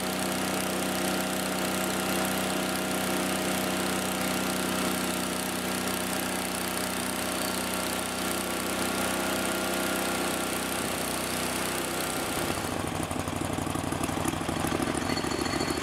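Hud-Son portable band sawmill sawing a pine board: its engine running under load with the steady hiss of the band blade in the wood. About thirteen seconds in the cut ends, the hiss drops away, and the engine runs on alone.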